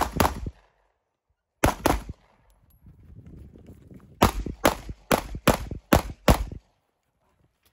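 Pistol shots. There is one shot just at the start and a quick pair about two seconds in, then a fast string of about eight shots between about four and six and a half seconds.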